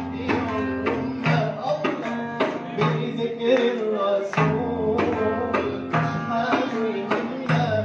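A man singing through a hand-held microphone over music with a steady drum beat, about two strikes a second.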